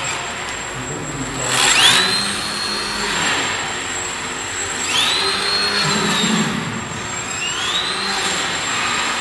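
Homemade CNC machine running, its motors whining up in pitch and then holding steady for each move, about four times, over a steady machine hiss.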